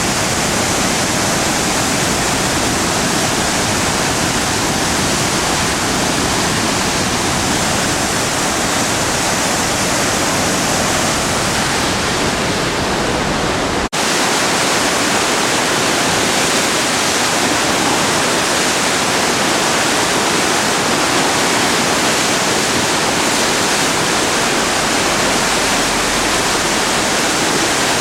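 The Driva river in a 50-year flood, its floodwater rushing in a loud, steady, unbroken noise. About halfway through the sound cuts briefly and resumes with a little less low rumble.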